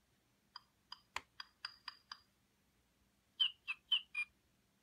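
Toy hatching egg: the chick inside pecks at its plastic shell with seven quick taps, then gives four short high chirps.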